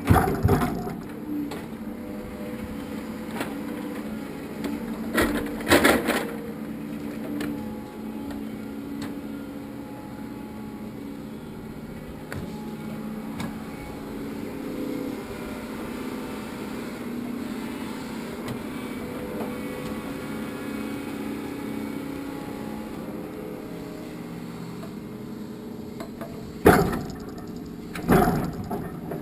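Log loader's engine running steadily while the crane works, with sharp knocks of log striking log as logs are set onto the truck bed: one at the start, two about five and six seconds in, and two near the end.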